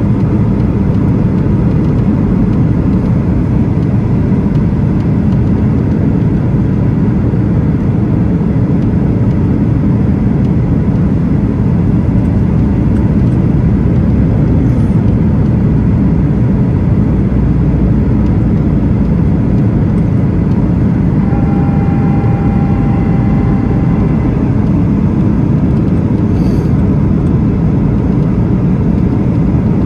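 Steady low rumble inside a Boeing 737-900 cabin in flight, heard from a window seat over the wing: the CFM56-7B engines and airflow over the extended flaps on approach. A faint steady whine joins for about two seconds around two-thirds of the way through.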